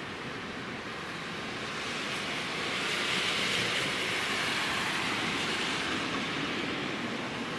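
Freight train approaching: a steady rumble and rail noise from an EH500 electric locomotive and its container wagons, swelling a little around the middle.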